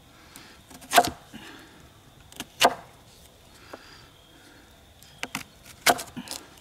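A knife cutting through a raw potato and knocking against a wooden tabletop: a few short, sharp knocks, one about a second in, one near the middle and a cluster near the end.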